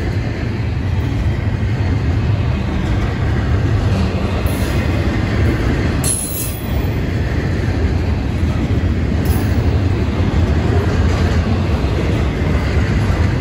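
Double-stack intermodal container well cars of a long freight train rolling past: a steady, loud rumble of steel wheels on rail.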